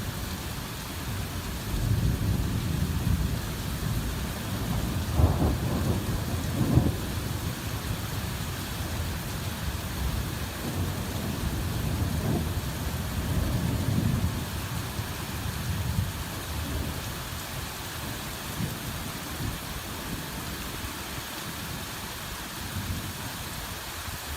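Heavy rain falling steadily. Under the rain, a low rumble swells and fades several times, loudest about five to seven seconds in.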